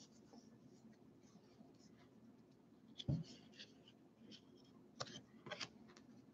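Faint rustle of baseball cards being slid off a stack and flipped through by hand, with a few short clicks of card on card and a soft knock about three seconds in.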